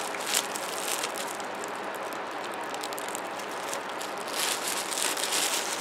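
Clear plastic wrapper bag crinkling and rustling around a large foam squishy toy as it is squeezed and handled, with a louder stretch of crinkling near the end.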